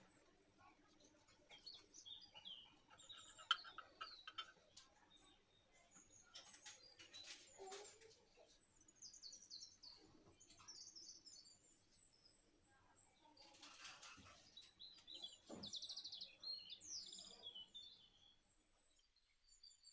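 Faint birdsong: many short, high chirps. Against it come soft scraping and crackling sounds from a knife cutting through a baked bread loaf and from the slices being handled, the fullest of them about two-thirds of the way in.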